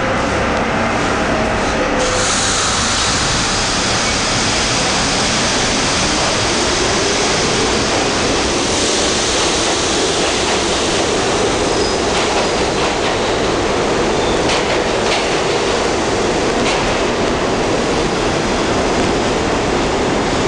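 New York City subway train pulling out of an underground station and running along the platform: a loud, steady rumble of steel wheels on rail, with a few sharp clicks in the second half.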